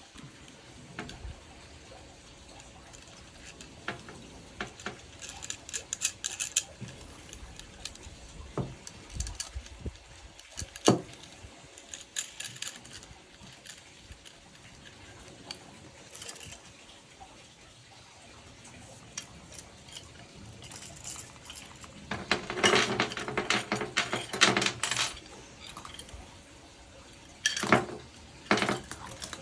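Steel chain links, carabiners and snap hooks of a Whip Bat swing trainer clinking and jingling as they are clipped together by hand, with scattered single clicks and a longer stretch of rattling chain about three-quarters of the way through.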